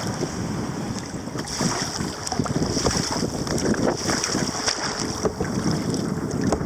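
Wind buffeting the microphone of a kayak being paddled into a headwind, with water splashing and lapping around the hull.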